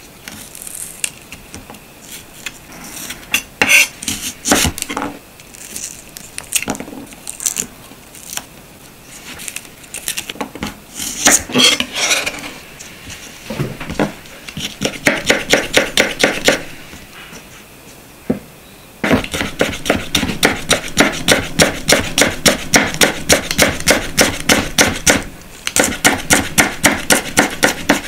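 Kitchen knife slicing garlic cloves on a cutting board: runs of quick, even knife strokes against the board, about four to five a second, starting about halfway through. Before that come scattered small knocks and scraping as the cloves are handled and cut.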